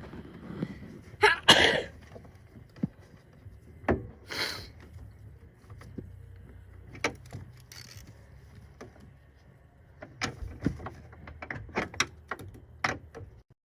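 Metal tools and bracket hardware clinking and knocking as a battery hold-down L bracket is fitted and its 13 mm bolt tightened, with two short whirring bursts about a second and a half and four and a half seconds in.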